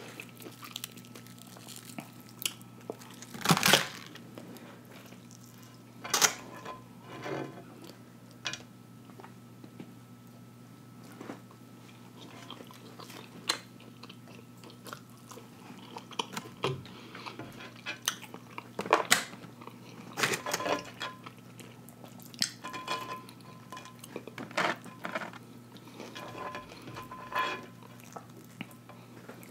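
Chewing and biting into crispy breaded fried catfish: irregular crunches of the breading and wet mouth sounds, spaced out with quieter gaps. A faint steady hum runs underneath.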